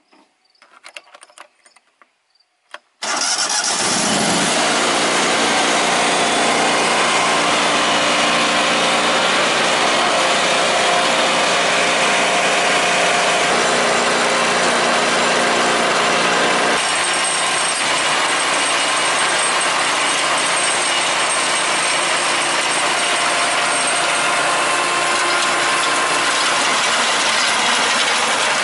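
Simplicity Legacy garden tractor's engine starting abruptly about three seconds in after a few light clicks, then running steadily and loud. Its note shifts slightly about halfway through, and by the end the rear rotary tiller is turning in the soil.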